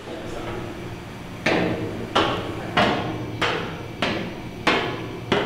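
Boots stepping down a metal spiral staircase: about seven evenly paced footfalls, each a sharp clank with a short ring, over a low steady hum.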